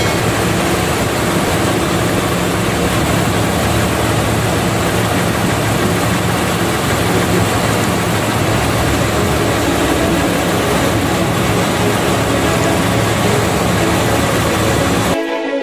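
A boat's engine running steadily under a heavy hiss of wind and rough sea, cutting off abruptly near the end.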